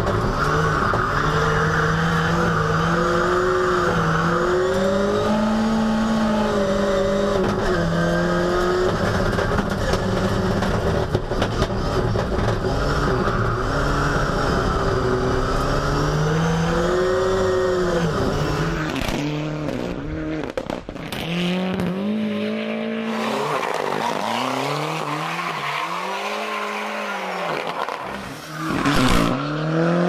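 Ford Sierra Cosworth rally car's turbocharged four-cylinder engine heard from inside the cockpit at racing pace, its note rising and falling repeatedly through gear changes and braking. About two-thirds of the way in, the sound switches to the car heard from the roadside, engine revving and tyres squealing as it slides through a bend.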